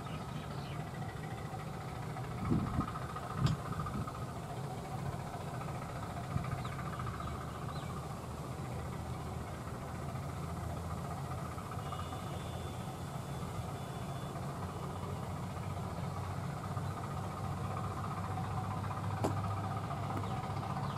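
Bangladesh Railway diesel locomotive's engine running steadily as it pulls a local train slowly toward the listener, growing slightly louder near the end. A few short knocks sound about two and a half and three and a half seconds in.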